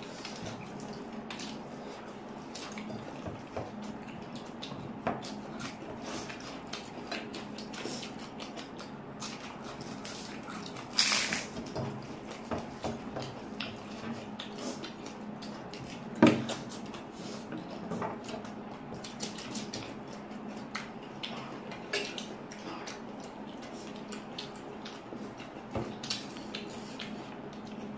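Eating from a plate: scattered small clicks and clinks of food being mixed and picked up, with a louder scrape about eleven seconds in and a sharp knock about sixteen seconds in.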